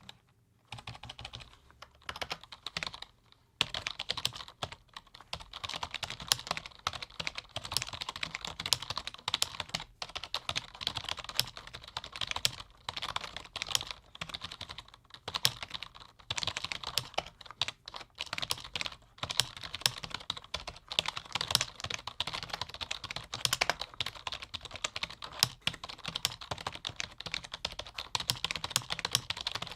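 Fast, continuous typing on a low-noise computer keyboard: a dense run of key clicks with a few brief pauses.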